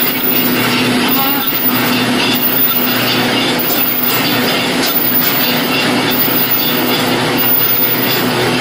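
Non-woven bag printing machine running steadily, its inked rollers and belt-driven printing cylinders turning: a continuous mechanical running noise over a steady hum.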